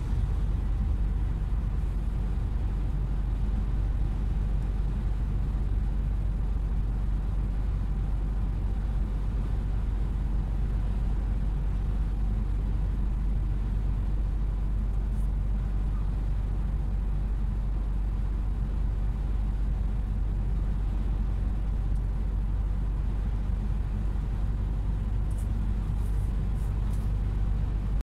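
Steady low drone of a vehicle cruising on a highway, engine and tyre noise heard from inside the cabin, with a few faint ticks near the end.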